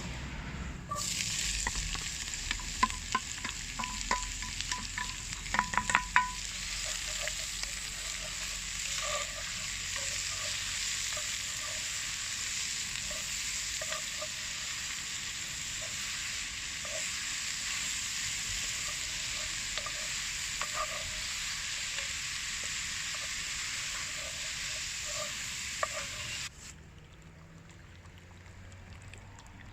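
Food sizzling as it fries in a pan while being stirred. A metal utensil clicks against the pan several times in the first few seconds, then knocks softly about once a second. The sizzle cuts off abruptly near the end.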